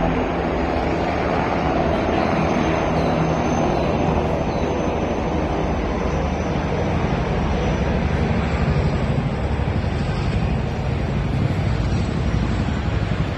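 Military helicopters flying overhead, their rotor blades beating rapidly and steadily. The low beat grows stronger in the second half as a pair of CH-47 Chinook tandem-rotor helicopters passes.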